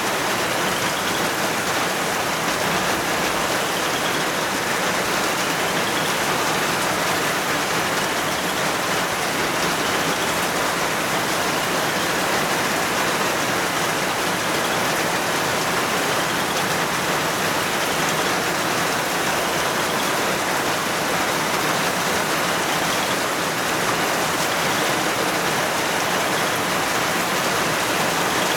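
Heavy rain falling in a steady downpour: an even, unbroken hiss that holds at one level throughout.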